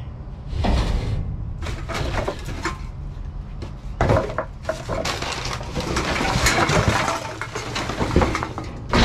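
Empty aluminium drink cans, plastic bottles and wooden boards clattering and scraping inside a dumpster as trash is shifted by hand. There are irregular knocks and rattles throughout, with louder knocks about four seconds in and near the end.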